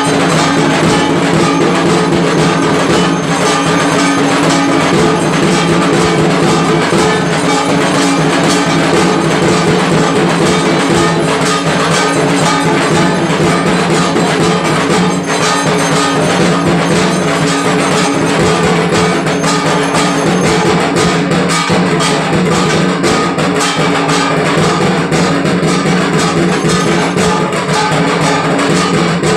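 Temple aarti percussion, with bells and drums struck rapidly and without pause in a loud, dense, steady clatter.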